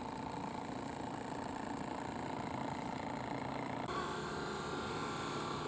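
Saito model steam engine of a radio-controlled steam launch running steadily under way, a continuous mechanical hum with faint steady tones. The tone shifts abruptly about four seconds in.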